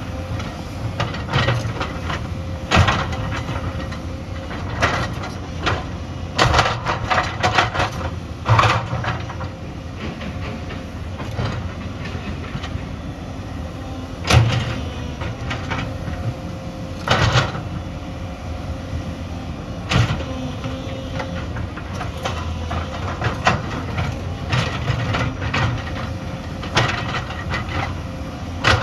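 Excavator's diesel engine running steadily, with frequent irregular sharp clanks and knocks of the steel bucket working among stones.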